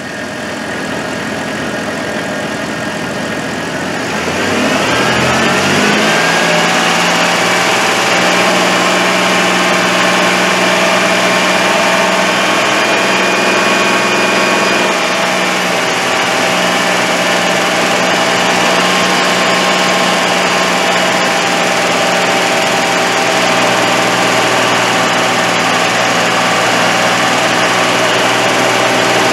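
Car engine revved from idle up to about 2000 rpm between about four and six seconds in, rising in pitch, then held steady at that speed for an A/C pressure reading.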